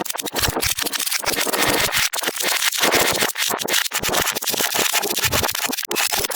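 Designed radio-static glitch effect: loud crackling static that stutters and cuts out in sudden short dropouts many times, like a corrupted, breaking-up transmission.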